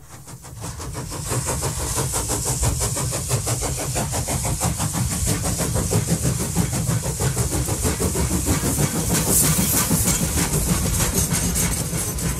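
Steam-hauled heritage train running, heard from a carriage window: a fast, even beat over a heavy low rumble. It fades in over the first second or so.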